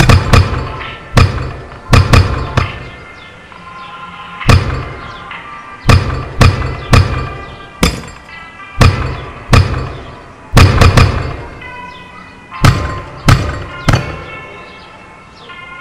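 Music: heavy, deep percussive hits at irregular intervals, about a dozen, over sustained melodic notes.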